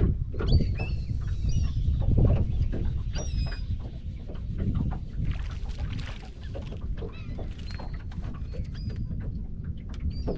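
A flock of seabirds calling over a feeding frenzy as they dive on shrimp: many short, high, repeated cries, over steady wind and water noise with scattered knocks.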